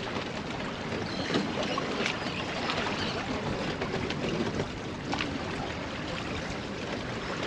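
Choppy saltwater lapping and sloshing against the kayak hull and the bridge pilings, steady throughout, with a few faint knocks.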